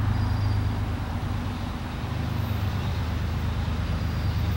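Steady low drone of a distant diesel freight locomotive approaching along the track.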